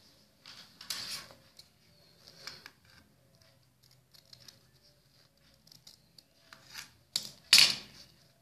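Scissors cutting through folded cloth in a series of short, separate snips, the loudest near the end.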